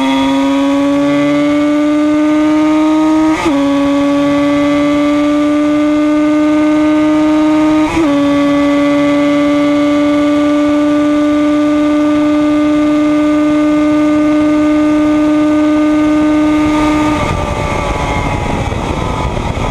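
1976 Yamaha RD 250's air-cooled two-stroke parallel-twin engine at high revs under full throttle, heard onboard. It shifts up twice, each change a brief break in the note followed by a lower pitch that climbs again; near the end the steady note breaks up into a rough, noisy sound.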